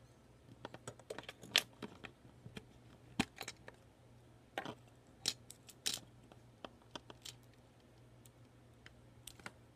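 Plastic Lego pieces clicking and tapping as a hand handles and fits them, in irregular clusters of small sharp clicks, busiest in the first half.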